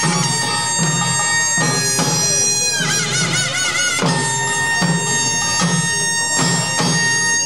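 Korean pungmul band playing: a shrill double-reed shawm (taepyeongso) holding long, wavering notes over a steady rhythm of barrel drums and clanging small brass gongs (kkwaenggwari).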